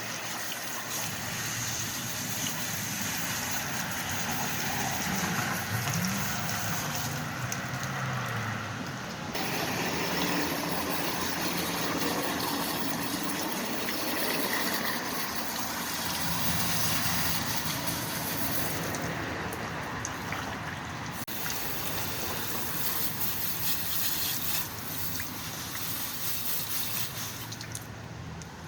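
Running water spraying and splashing as carburetor castings are rinsed off after being doused in carb cleaner. The water keeps shifting in strength as the flow is moved over the parts.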